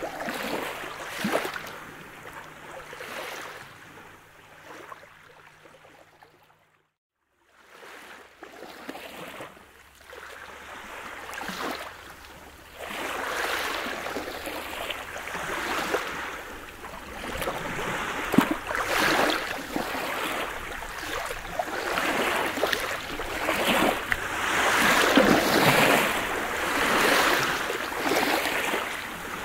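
Small sea waves washing up and over a pebble beach, each wash swelling and falling back every couple of seconds. About seven seconds in the sound cuts out for about a second, then the waves return, growing louder toward the end.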